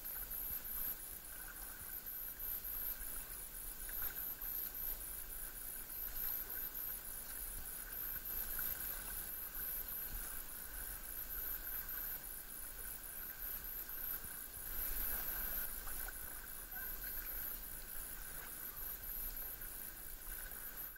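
Tandem kayak being paddled over calm sea: soft paddle strokes and water washing along the hull, over a steady hiss and a faint high-pitched fluttering whine, with louder strokes about eight and fifteen seconds in.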